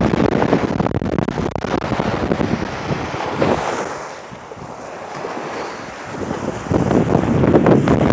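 Gusty wind buffeting the microphone over small waves washing up on a sandy shore. The wind eases for a couple of seconds midway, then picks up again.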